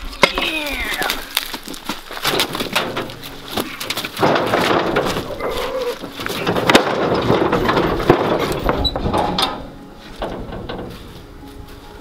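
A heavy tree stump being hauled onto a utility trailer's steel mesh ramp gate: wood knocking and scraping on metal. The longest, loudest stretch of scraping comes about four seconds in and lasts several seconds.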